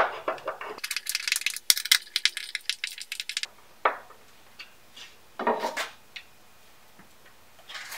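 Hand screwdriver driving a screw through a water filter's metal mounting bracket into the wall: a dense run of quick scraping clicks for about two and a half seconds, then a few scattered clicks and rubs.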